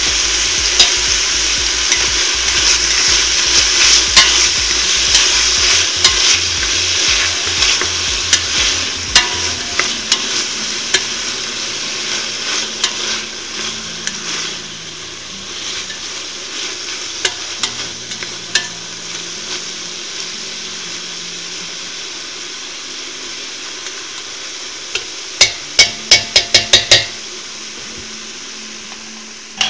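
Bacon and onions sizzling as they fry in a pot and are stirred, with scattered clicks and scrapes; the sizzle gradually fades. Near the end comes a quick run of about eight sharp knocks, the loudest sounds here.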